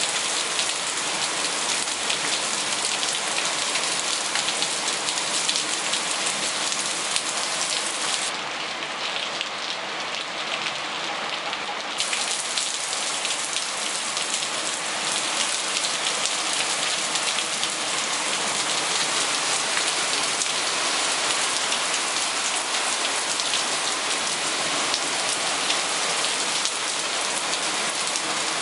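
Heavy rain falling on paving slabs and lawn: a dense, steady hiss of drops that loses some of its brightness for a few seconds about eight seconds in.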